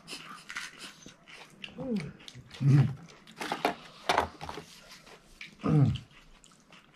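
Three short vocal calls that rise and fall in pitch, at about 2, 3 and 6 seconds, the loudest sounds here, over scattered cracking and crunching of crisp puri shells being broken and eaten.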